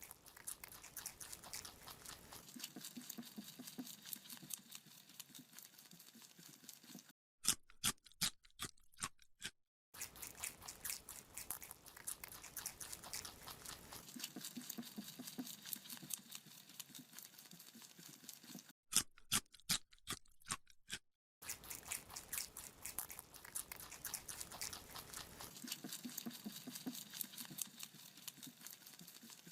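A rabbit chewing a carrot: a fast run of close, crisp crunching bites, broken twice by short quiet gaps with a few louder single crunches. The same stretch repeats about every 12 seconds.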